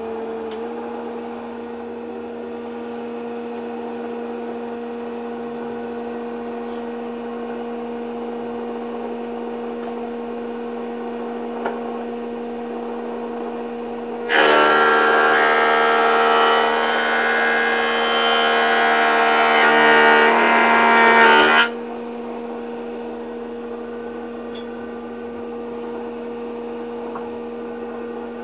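Thickness planer of an old Van Looy combination woodworking machine running: the motor and cutterhead settle to speed just after the start and run with a steady hum. About halfway through, a board is fed through and the planing cut is loud for about seven seconds, then it drops back to the idle hum.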